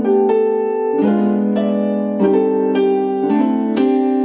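Keyboard playing a chord progression: several sustained chords, each struck and held about a second before the next, a passing-chord run leading to the 4 chord in the key of G.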